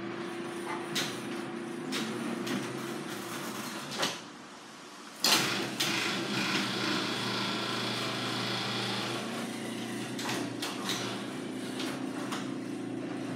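Garage door opener running and the sectional door rolling along its tracks, freshly lubricated, with a steady motor hum and scattered clicks. It stops about four seconds in, then starts again with a sudden loud clunk about a second later and runs on.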